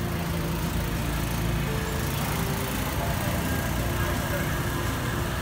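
Town street at night: steady traffic noise with vehicle engines running, and people talking in the background.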